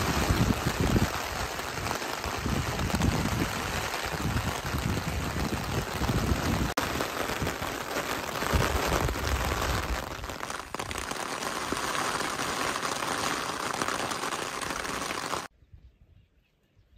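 Steady hiss of falling rain, with an uneven low rumble underneath; it cuts off abruptly near the end.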